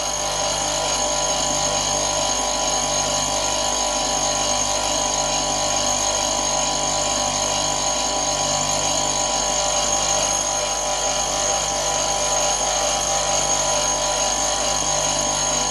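Electric motor of a bench grinder converted into a wax lathe, running steadily with a constant hum and whine.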